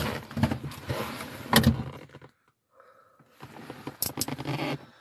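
Clicks, knocks and rattling from someone handling an old, long-abandoned car. Two bouts of clatter with sharp clicks, separated by a brief silent gap about halfway.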